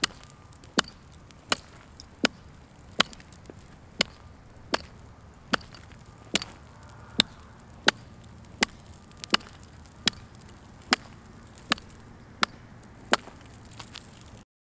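Small axe chopping into lake ice: sharp, evenly paced strikes, a little more than one a second, as a hole is cut through the ice.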